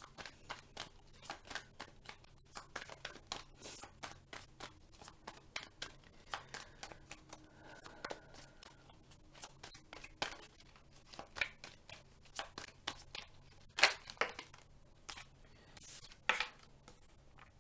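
A deck of tarot cards being shuffled by hand: a long run of quick, papery card clicks and riffles. Near the end there are two louder snaps as cards are laid on the wooden table.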